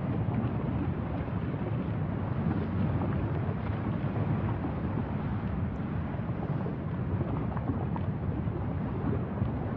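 Wind buffeting the microphone, a steady low rumbling noise that flutters unevenly.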